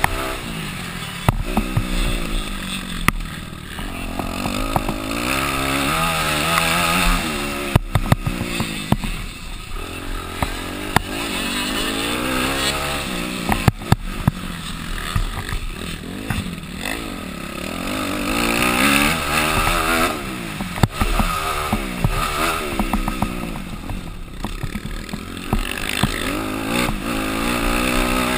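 Motocross bike engine revving hard and easing off again and again, its pitch climbing and dropping every few seconds as the rider accelerates and shifts. Sharp knocks and clatter cut in throughout.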